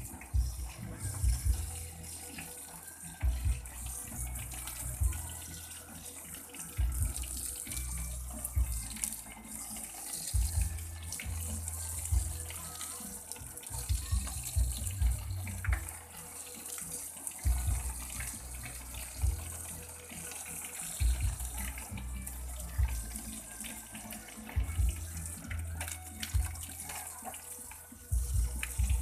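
Water running steadily, with irregular low thumps and rumbles over it.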